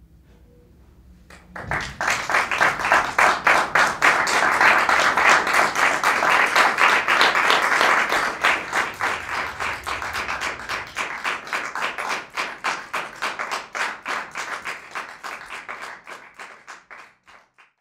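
Audience applauding: it bursts in about a second and a half in, stays dense and loud for several seconds, then thins into fewer separate claps and dies away near the end.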